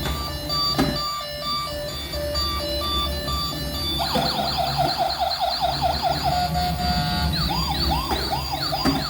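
Electronic toy siren cycling through patterns: a steady two-tone hi-lo beep, then about four seconds in a fast warble, and near the end a slower repeating whoop.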